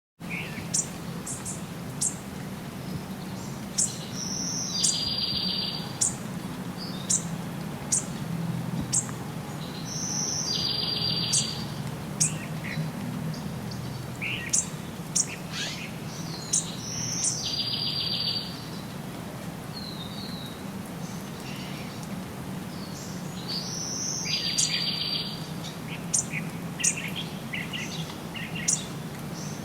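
Wild birds singing: one bird repeats a song about every six seconds, a high note followed by a buzzy trill lasting about a second, among many short, sharp chirps. A steady low hum runs beneath.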